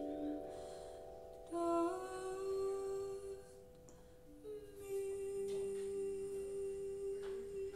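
Jazz ensemble's final chords of the piece: voices and instruments hold long, soft, steady notes together, moving to a new chord about one and a half seconds in and again a little after the middle.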